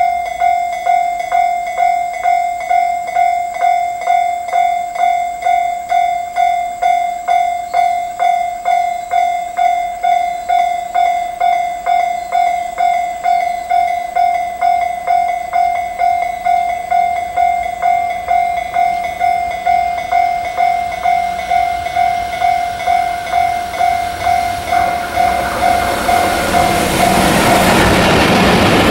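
Railway level-crossing warning bell ringing in an even 'kan-kan' rhythm of just under two strikes a second as a train approaches. Near the end the bell stops and the rumble of a pair of EF64 electric locomotives hauling tank wagons rises as they pass close by.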